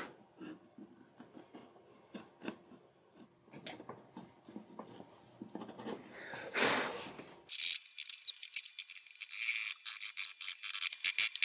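Hand chisel and gouge paring and scraping burrs from freshly milled wild cherry. Faint scattered scrapes and taps at first, then from about two-thirds of the way in a louder, quick run of crisp scraping strokes.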